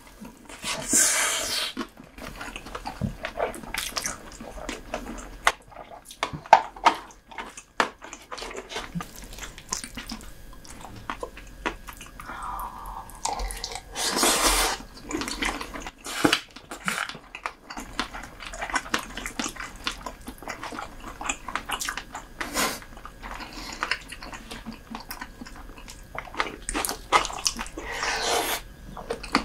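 Close-miked eating sounds of soy-sauce marinated raw lobster: wet chewing, sucking and smacking with many small clicks. A few louder wet bursts come about a second in, around the middle and near the end.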